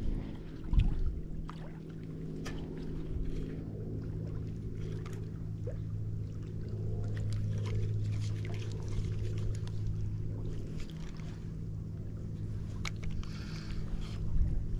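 Steady low engine hum of a distant motorboat on the lake, swelling a little in the middle and easing off again, with scattered light clicks and rustles as a spinning reel and rod are handled.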